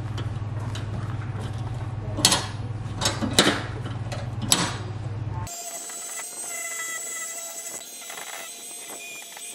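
Tongue-and-groove pliers clanking sharply on a welded steel hasp and hinge, four metal strikes over a steady low hum. About halfway through the sound cuts to the quieter, steady multi-tone whine of an angle grinder smoothing the welded flat-bar steel frame.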